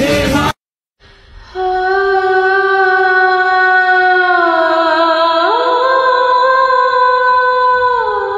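Background music: a slow, wordless vocal melody of long held notes that glide down, jump up and drop again. About half a second in, the preceding clip's sound cuts off, leaving a brief silence before the melody begins.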